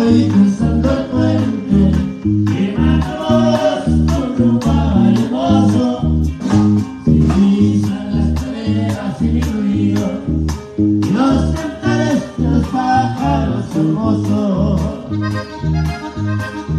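A norteño band plays an instrumental passage: the accordion carries the melody over strummed bajo sexto and a bouncing, alternating bass line, with steady drum hits keeping the beat.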